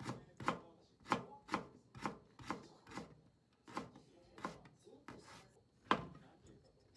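Kitchen knife cutting carrots into thin strips on a plastic cutting board: a sharp knock about every half second, with a light scrape of the blade between strokes. Near the end comes the loudest knock, as the knife cuts through a shiitake mushroom.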